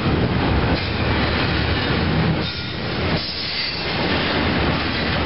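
Double-stack intermodal well cars rolling past: a steady rumble of steel wheels on rail, with repeated knocks and a couple of brief dips in loudness as the cars go by.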